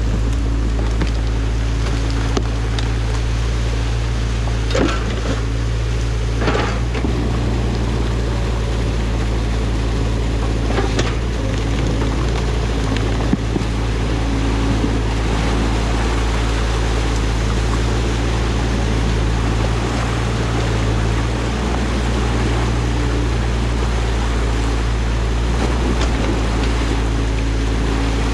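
Excavator's diesel engine running steadily over an even hiss, with a few short knocks and clunks, the sharpest about halfway through.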